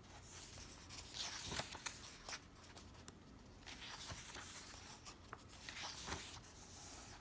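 Pages of a hardback book being flipped through by hand: paper rustling with several sharp page flicks and swishes.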